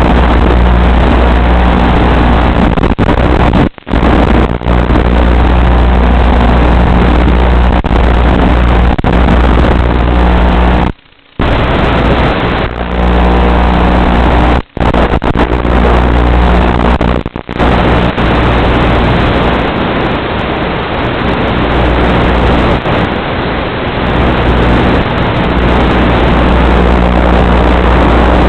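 Onboard sound of an FPV model aircraft's electric motor and propeller in flight, a steady drone carried over the analog video link. It cuts out briefly several times, once for about half a second around the middle, as the signal drops.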